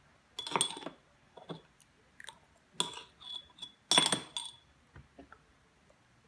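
A small metal spoon clinking and scraping against the inside of a glass baby-food jar, in about five short bursts, each clink ringing briefly; the loudest comes about four seconds in.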